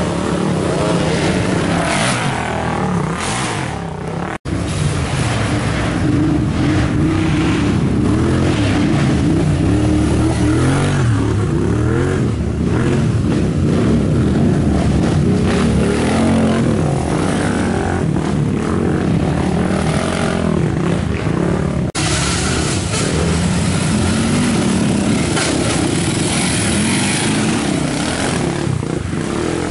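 Racing ATV (quad) engines revving and easing off as several quads ride past one after another on a dirt trail, the engine pitch rising and falling. The sound drops out for an instant twice, about four seconds in and again after twenty seconds.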